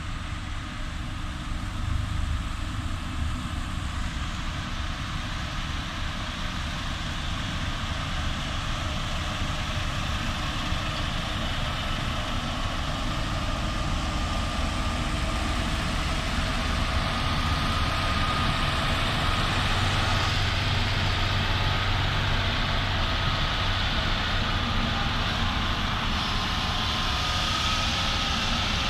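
Heavy diesel engines of road construction machines, a motor grader and road rollers, running steadily as they move in a line, growing gradually louder as they come closer.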